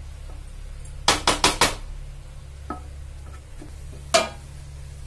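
Wooden spatula knocking against the rim of a metal cooking pot: four quick taps about a second in, a few faint ones, then one more near the end, over a steady low hum.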